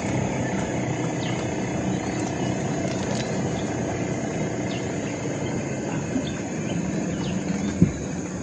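A motorboat engine drones steadily at a distance and slowly fades, under a steady high buzz and scattered short bird chirps. A single sharp knock sounds near the end.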